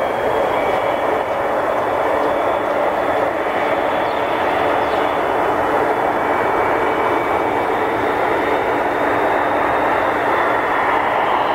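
The twin General Electric F404 turbofans of an F/A-18D Hornet at taxi power, a loud steady jet roar. Over it runs a high whine that rises and falls slightly in pitch.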